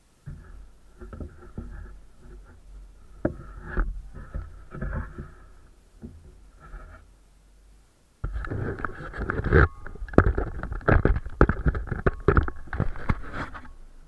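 Sanding on a plywood boat: irregular rough scraping strokes, quieter at first, then louder and denser from about eight seconds in.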